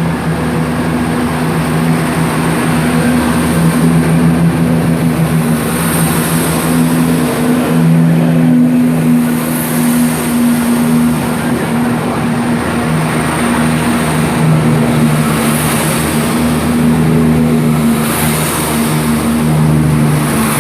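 Chiltern Railways Class 168 diesel multiple units pulling out, their underfloor diesel engines working under power with a loud, steady drone.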